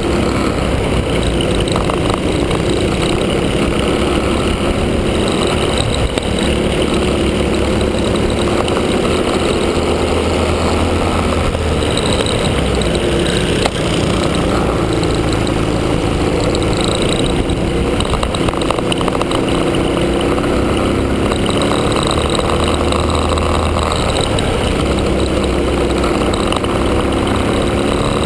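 Small four-stroke single-cylinder Honda kart engine of a Cadet kart, heard on board, its pitch rising and falling over and over as the kart accelerates and backs off through the corners, with the engines of other karts running close ahead.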